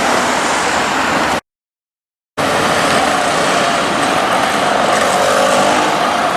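Loud, steady street-vehicle noise, cut by about a second of complete silence a second and a half in, then resuming with a faint whine near the end.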